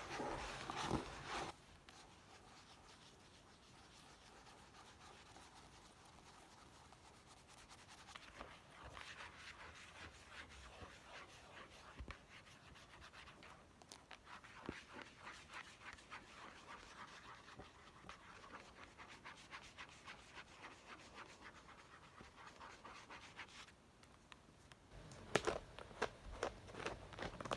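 Scratching and tapping on a book. A louder burst opens it, followed by a long stretch of soft, fast scratching with small clicks, then a run of louder, quick taps near the end.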